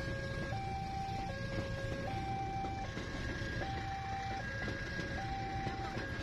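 Railway level-crossing warning alarm sounding from its pole-mounted horn loudspeaker: two tones, low and high, alternating, each held a little under a second. Under it runs the low rumble of a passenger train rolling past.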